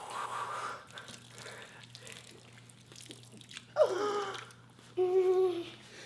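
A person crying theatrically: a breathy sob at the start, a wail that falls steeply in pitch about four seconds in, then a short held whimper. A steady low hum runs underneath.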